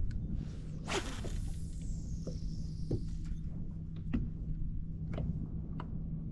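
A cast with a fishing rod: a swish about a second in, then line whirring off the reel and slowing down. After it come a few scattered light clicks and ticks over a steady low rumble.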